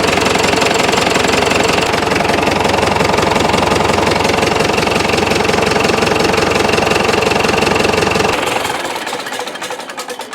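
1961 Case 831C tractor's diesel engine idling with a steady, even knock, then shut off about eight seconds in and running down to a stop.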